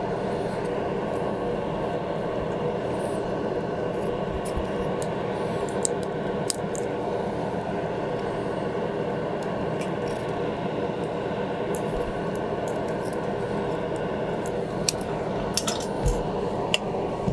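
Steady whir of a benchtop solder fume extractor's fan, with a few light clicks of small parts and tools handled on the desk, most of them near the end.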